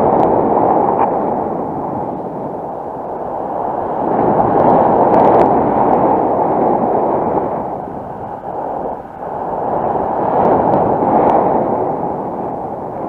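Wind rushing over the microphone of a paraglider in flight, a loud rumbling rush that swells and eases every few seconds as the airflow changes.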